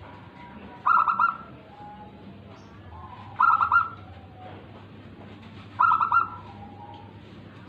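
Zebra dove (perkutut) cooing: three short, rapidly pulsed coo phrases, each about half a second long and about two and a half seconds apart.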